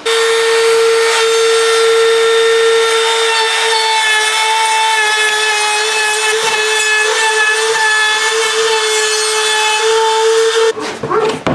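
Makita 18V cordless compact router with a round-over bit running at full speed, a steady high whine over the hiss of the bit cutting along the edge of a plastic water tank. It shuts off abruptly near the end.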